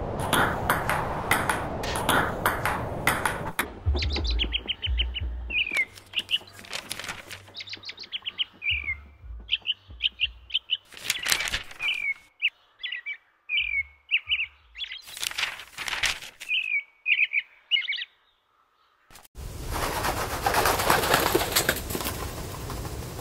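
Bird chirps repeated in short phrases, each ending in a falling note, with low thumps beneath. They come between a run of rhythmic whooshing pulses at the start and a dense wash of whooshing noise near the end.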